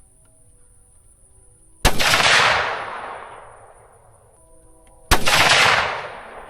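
Two muzzleloader rifle shots about three seconds apart, each a sharp crack followed by a long fading echo.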